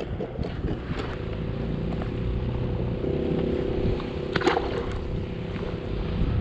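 Electric motor of a motorized fishing kayak humming steadily, starting about a second in, over wind and water noise.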